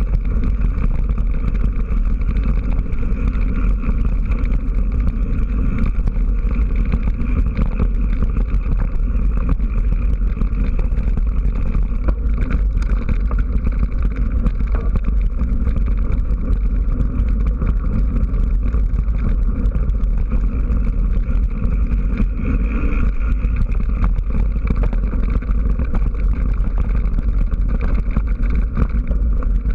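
Steady riding noise from a mountain bike on a rough gravel and dirt track: a heavy low wind rumble with constant fine rattling and crackling, heard through a bike-mounted action camera.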